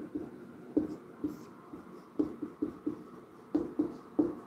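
Marker pen writing on a whiteboard: a string of about a dozen short, uneven strokes as letters are drawn.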